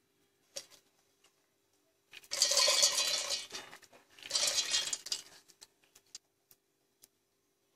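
Soaked urad dal tipped from a steel bowl into a steel mixer-grinder jar, two clattering pours of wet grains against metal about two and four seconds in, followed by a few faint clicks.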